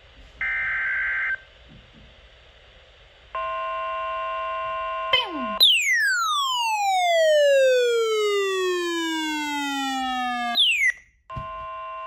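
Midland NOAA weather radio sounding a severe thunderstorm warning alert. A short high-pitched burst comes first, then a steady multi-tone alert tone. About five and a half seconds in, a long siren-like sweep falls steadily in pitch for about five seconds and is the loudest part. The steady tone sounds again briefly near the end.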